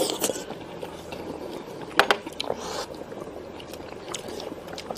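Faint sounds of a person eating: chewing a mouthful of fish and handling chopsticks and a bowl, with one sharp click about two seconds in.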